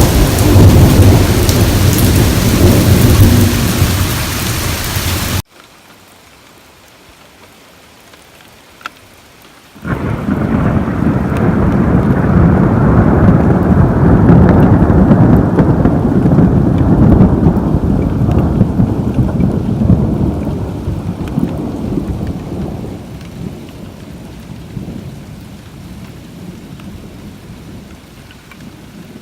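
Thunderstorm: heavy rain with rolling thunder, which cuts off abruptly about five seconds in. About ten seconds in, a close thunderclap breaks suddenly and rumbles on, slowly fading away over the next fifteen seconds.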